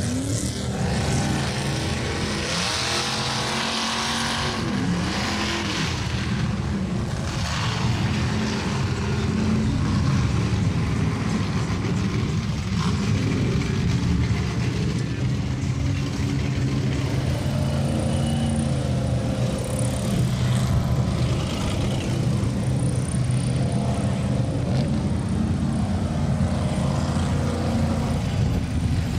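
Engines of lifted Chevy mud trucks running and revving as they churn through a mud bog. The pitch rises and falls a few seconds in, then the engines run steadily.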